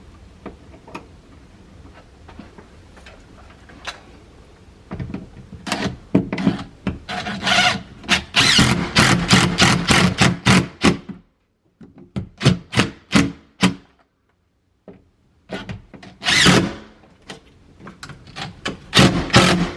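Screws being driven into the wall to fix a thermostat base plate: faint scraping at first, then a long loud run of rapid rattling strokes, followed by several shorter bursts with brief stops between them.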